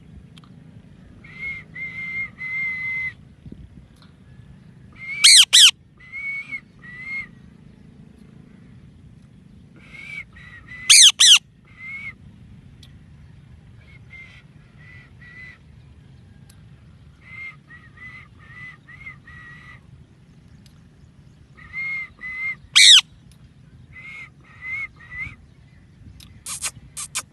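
A parrot calling: groups of three to five short, repeated chirps, broken about four times by a very loud, shrill whistle that sweeps down in pitch.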